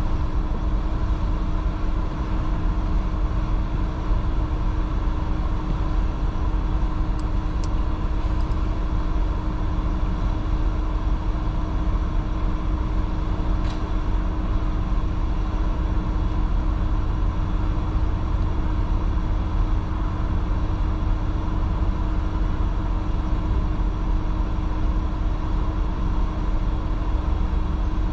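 Steady low rumble of city street traffic, cars and buses idling and crawling in a jam, with a constant hum underneath. A few faint, brief high ticks come about seven to eight seconds in and again near fourteen seconds.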